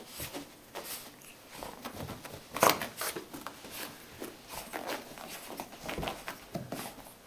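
Small wet dog rolling and rubbing itself on carpet: irregular rustling and scratching of fur and paws, with one louder scuffle about two and a half seconds in.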